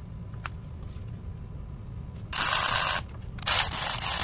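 Cordless electric ratchet running in two short bursts as it drives a bolt on a VW 2.0T camshaft adjuster magnet during reinstallation.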